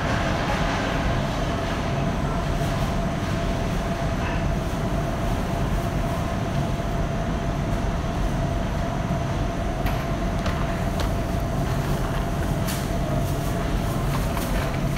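Supermarket ambience: a steady low rumble with a constant mid-pitched hum, and scattered light clicks and knocks that come more often in the last few seconds.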